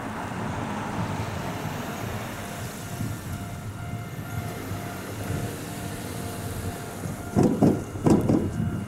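Ohmi Railway two-car electric train approaching at low speed, a steady rumble of wheels on rail. Near the end come several loud, short thumps.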